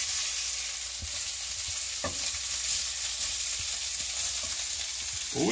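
Bluegill fillets sizzling steadily in a frying pan, with a couple of light clicks about one and two seconds in as they are turned.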